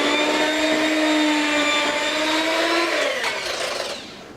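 Electric hand mixer running steadily in batter, then switched off about three seconds in, its motor whine falling in pitch as it winds down.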